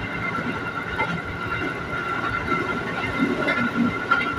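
Running noise of an ex-JR 205-series electric commuter train in motion, heard from inside the car: a steady rumble under a constant high whine, with a few sharp knocks about a second in and near the end.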